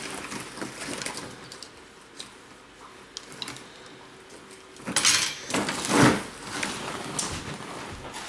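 Handling noises from packing belongings: soft knocks and rustling as things are moved about and put into a box. A louder rustling stretch comes about five seconds in.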